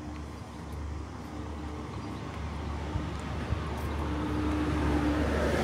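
A motor vehicle approaching along the road, its engine hum and tyre noise growing steadily louder.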